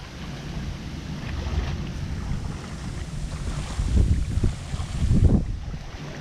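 Strong wind buffeting the microphone, a low rumble with louder gusts about four and five seconds in.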